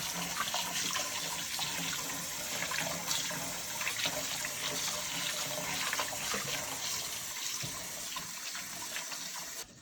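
Water running from a tap into a sink, splashing steadily, then shut off suddenly near the end.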